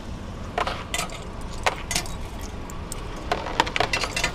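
Coins clinking as they are dropped into a toll machine's coin hopper, a scatter of short metallic chinks, most of them bunched together near the end. Under them, the low steady idle of the car's engine.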